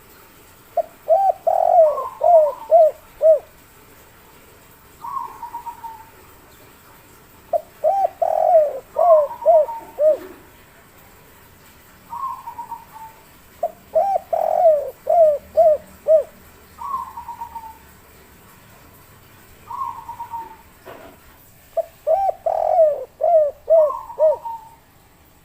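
Spotted dove (derkuku) singing its 'kuk 3' song. It repeats a phrase about every six seconds: a run of five or six quick coos, with softer, higher, faster notes between the phrases.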